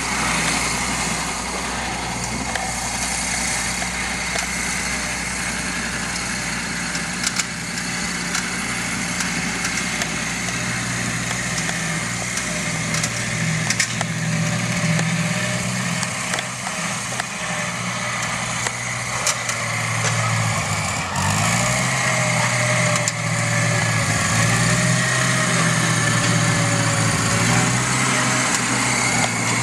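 Ford 8N tractor's four-cylinder flathead engine running steadily under load while pulling a disc harrow through dirt. Its pitch dips briefly about two-thirds of the way through, and it is a little louder after that.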